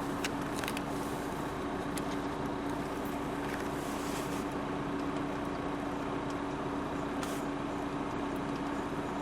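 Renault Laguna's diesel engine idling, heard from inside the cabin as a steady hum with a constant low tone, with a few faint clicks.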